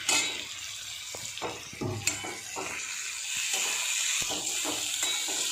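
Thin-cut potato sticks sizzling steadily as they fry in hot oil in a metal wok on full flame, with a metal spatula scraping and knocking against the pan as they are stirred; the loudest knocks come at the start and about two seconds in.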